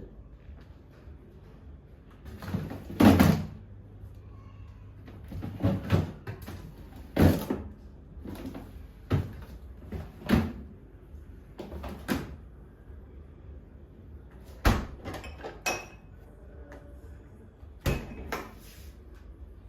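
Irregular knocks and clunks, about a dozen, of groceries and containers being put away with cupboard doors shutting, the loudest about three seconds in.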